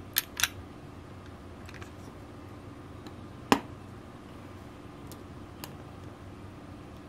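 Handling noise of a diecast model car body on a wooden tabletop: two light clicks near the start, one sharper knock about three and a half seconds in, and a couple of faint taps later, over a steady low room hum.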